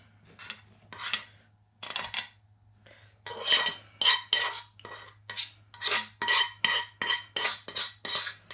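A metal fork scraping and clinking against the inside of a wok as pasta in sauce is pushed out into a bowl. At first there are a few scattered scrapes; from about three seconds in, quick, regular strokes with a metallic ring, about three a second.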